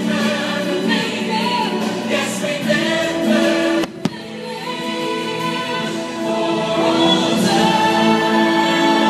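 Choir singing with musical backing, held sustained notes. A brief dropout and a single sharp click about four seconds in, like an edit splice.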